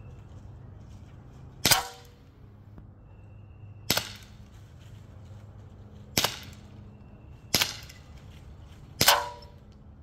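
Five shots from an Umarex Glock 17 Gen3 CO2 blowback BB pistol, sharp cracks at uneven intervals, the first and last trailed by a short metallic ring.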